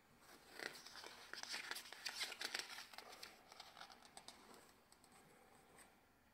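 Faint rustling and crinkling of a glossy catalogue page being turned by hand, with many small crackles for about three seconds, then trailing off into a soft rustle.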